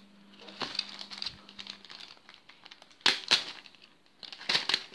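Black plastic mailer bag crinkling and rustling as it is handled and cut at with a knife, with sharp crackles about three seconds in and again near the end.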